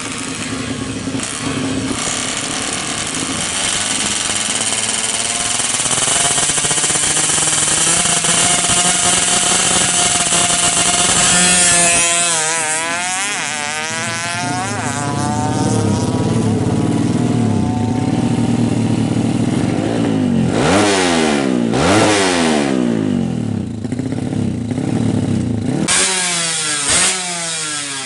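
Yamaha F1ZR 116 cc two-stroke single-cylinder engine, all stock, running and revving. Its pitch climbs slowly for about ten seconds, falls away, then rises and drops in a few quick blips later on.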